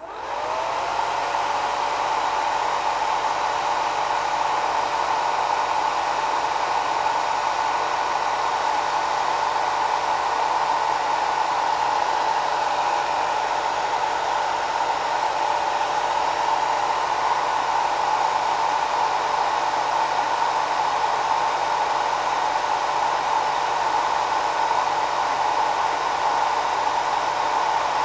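Hair dryer on its slow setting, its motor spinning up in the first second after being switched on, then blowing with a steady whir and a faint steady hum.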